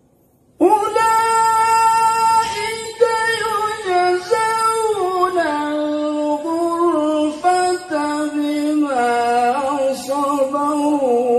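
A male qari reciting the Qur'an in melodic tilawah style. He starts about half a second in with one long, high, ornamented phrase that steps down in pitch as it goes.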